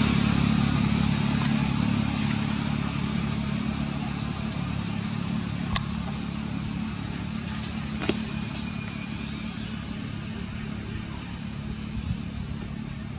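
An engine running with a steady low hum that slowly fades away, with a few sharp clicks about six and eight seconds in.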